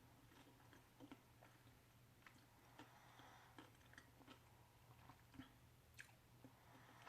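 Faint chewing of a mouthful of casserole topped with crunchy nacho chips: a scatter of small soft clicks and crunches over a low steady hum.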